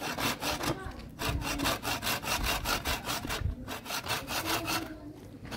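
Hand saw cutting through a thin wooden branch in quick, even back-and-forth strokes. There is a brief pause about a second in, and the sawing stops shortly before the end.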